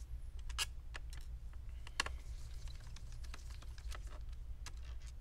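Scattered light clicks and taps of a Phillips screwdriver working the small screws out of a laptop's plastic bottom cover, the sharpest click about 2 seconds in, over a steady low hum.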